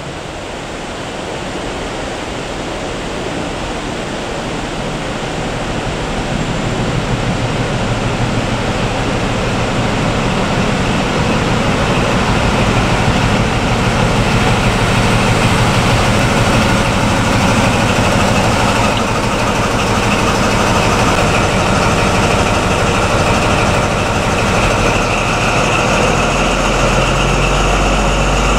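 Paxman VP185 V12 diesel engine of a Class 43 HST power car approaching and drawing up alongside, growing steadily louder over the first dozen seconds and then holding at close range, a low engine note under a steady high whistle.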